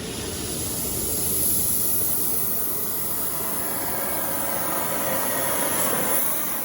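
A steady, loud hiss like rushing air, swelling in the first second or so and dying away at the very end.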